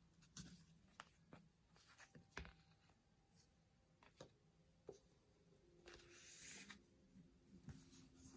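Faint handling of paper and small stationery items: scattered light taps and clicks, with a brief rustle of paper about six seconds in.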